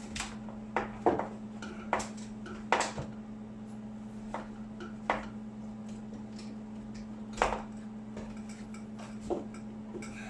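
Scattered metallic clinks and knocks of tools and conduit parts being handled, over a steady low hum.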